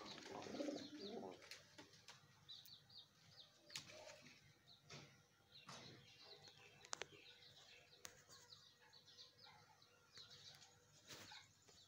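Faint bird chirping: short high chirps repeated in quick groups, with a few sharp clicks and a low rustle in the first second.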